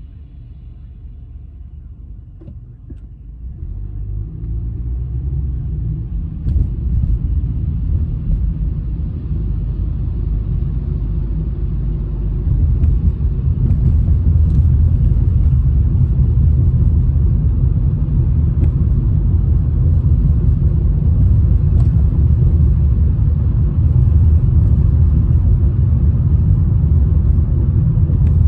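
Car engine and tyre noise heard inside the cabin as the car pulls away from a stop and gathers speed: a low rumble that grows louder over the first dozen seconds, then holds steady.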